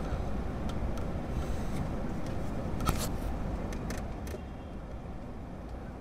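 Steady low background rumble, like distant traffic, with a few faint light clicks in the middle; it drops slightly about four seconds in.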